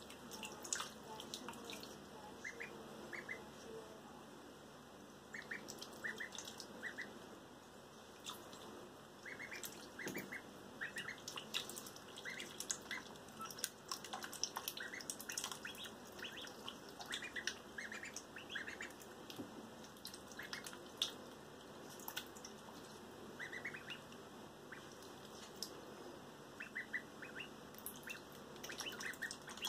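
Ducklings peeping, many short high calls in irregular clusters, with light splashing of bathtub water as they paddle and dabble.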